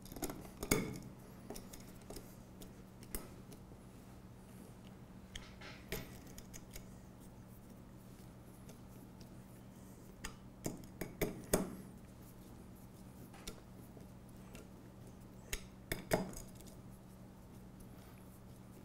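Hex key and hex driver tightening screws in the metal brackets of an aluminium extrusion chassis: scattered sharp metallic clicks and clinks as the tool seats in the screw heads and taps the metal, a few bunched together partway through and again later.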